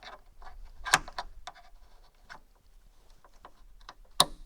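Hands working a metal hose retaining clip into a hydraulic cylinder fitting: a string of small clicks and taps, with two sharper clicks, one about a second in and one near the end.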